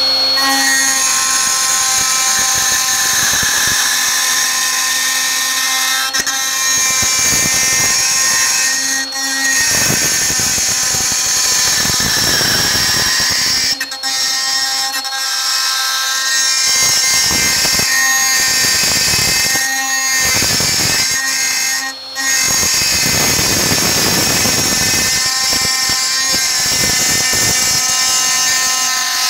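Milwaukee M18 Fuel cordless die grinder running wide open at its fixed speed, grinding a notch into a rusty ATV skid plate. A steady high whine over a harsh grinding hiss, dipping briefly a few times.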